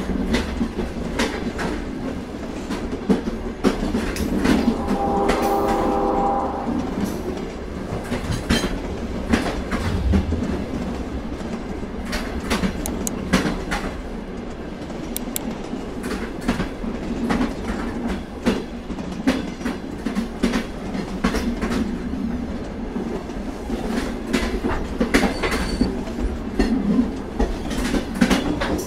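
Freight train cars rolling past: a steady rumble with steel wheels clicking irregularly over the rail joints. A brief pitched tone sounds over it about five seconds in.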